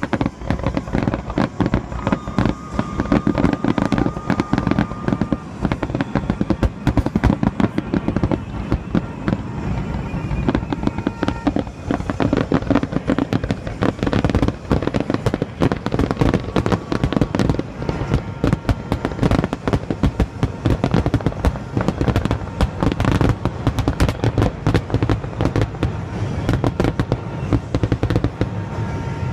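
Fireworks grand finale: a dense, unbroken barrage of aerial shell bursts and crackling, many reports a second overlapping without pause.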